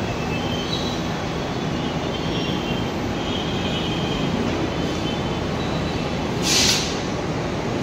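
Steady running noise of a Mumbai Metro train standing at the platform, with a short, loud hiss of air about six and a half seconds in.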